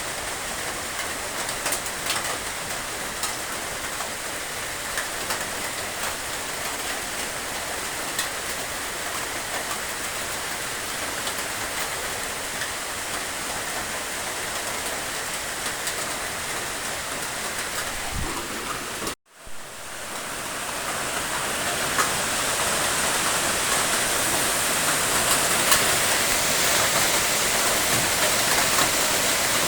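Steady rain falling, with scattered sharp drop ticks through it. About two-thirds of the way in, the rain cuts out for a split second. It then swells back in, a little louder and hissier than before: a splice in the looped rain recording.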